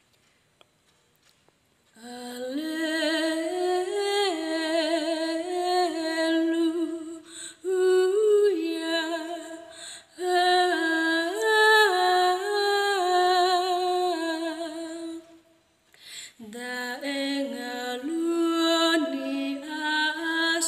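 A young woman singing an Easter-night responsorial psalm solo and unaccompanied, starting about two seconds in. She sings in held phrases with vibrato and short breaths between them.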